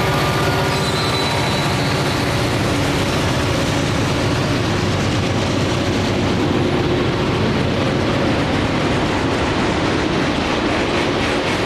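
CSX freight train passing close by: the drone of its trailing diesel locomotive fades in the first second or so, then covered hopper cars of the phosphate train roll past with a steady rumble of wheels on rail. Near the end, regular clicks of wheels over rail joints come in.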